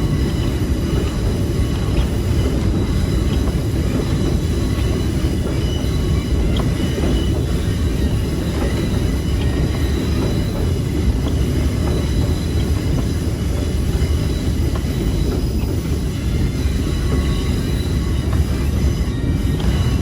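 Excursion train car rolling along the track: a steady rumble of wheels on rail, with faint steady high-pitched squeal tones over it.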